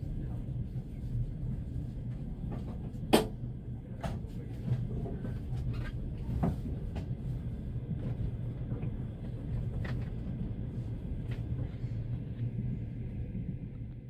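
Steady low rumble of a passenger train carriage under way, with a few scattered knocks and clicks, the sharpest about three seconds in.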